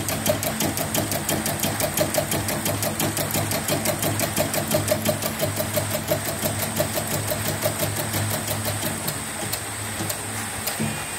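CNY E900 portable embroidery machine stitching a test design, its needle mechanism clattering in a fast, steady rhythm over a constant motor hum; it is running properly after repair. The stitching rhythm dies away near the end, leaving the hum.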